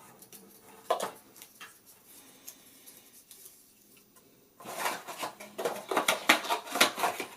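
PC parts and their packaging being handled: a few light taps and clicks, then from about four and a half seconds in a busy run of clattering and rattling of small hard parts.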